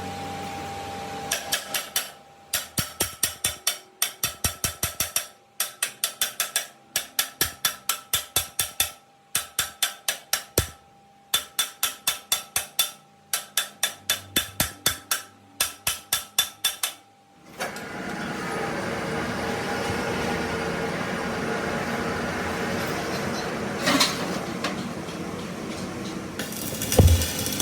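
Rapid, evenly spaced hammer strikes on metal, about four or five a second, in runs of a few seconds with short pauses. Then a workshop machine starts running steadily, with a sharp click partway through and a couple of knocks near the end.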